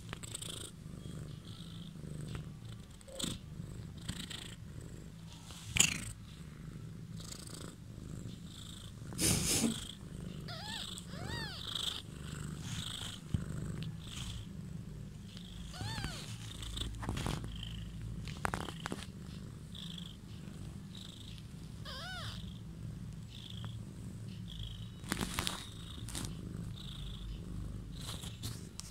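A cat purring steadily, a low continuous rumble, with a few short high squeaks and soft clicks here and there.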